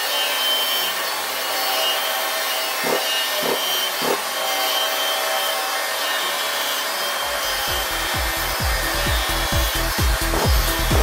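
High-Z CNC router cutting wood, its spindle running steadily with a rasping cutting noise and a few brief knocks. A low, evenly pulsing thumping starts about seven seconds in.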